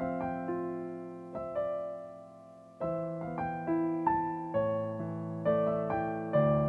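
Digital piano played slowly and softly, chords with a melody over them, each note struck and dying away. The notes fade about two seconds in, and a new phrase starts with a chord just before the three-second mark.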